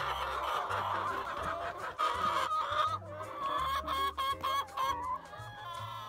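A flock of brown laying hens clucking, many short calls overlapping.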